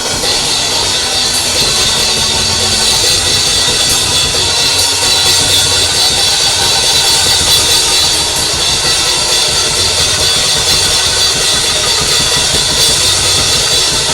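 Live band music driven by a drum kit with cymbals, loud and steady throughout.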